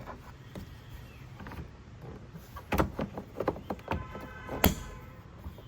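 Plastic clicks and handling noises as a car's number plate light and its diffuser lens are pushed back into the rear bumper, ending in one sharp snap near the end as it seats.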